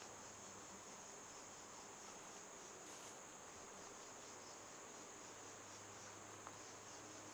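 Faint, steady high-pitched insect chorus, a continuous trilling over quiet woodland background hiss.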